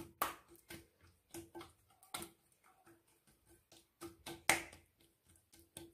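Oiled hands patting and slapping a thin sheet of mlaoui dough as it is stretched out on a glazed clay platter: a faint, irregular series of soft sticky slaps and ticks.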